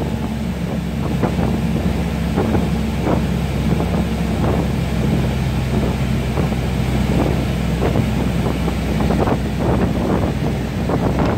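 Small motorboat under way, its engine running at a steady pitch. Wind noise on the microphone and irregular splashes of water against the hull.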